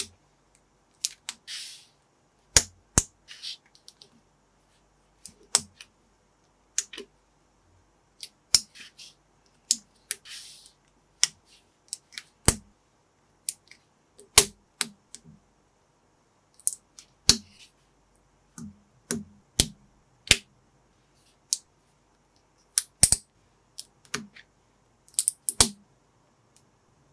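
Small plastic Lego-compatible bricks being handled and snapped together by hand: irregular sharp clicks, one or two a second, with a few brief rustling scrapes between them.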